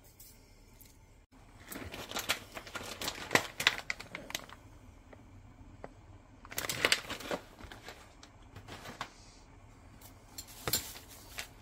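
Crinkling plastic packaging of store-bought cheese tortellini being handled and opened, in bursts of crackling: one longer stretch a couple of seconds in, another about halfway through and a short one near the end.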